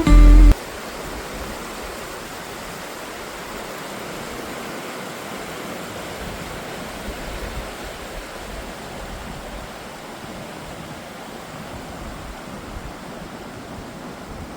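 Rushing water of river rapids, a steady even roar, after a piece of background music cuts off about half a second in.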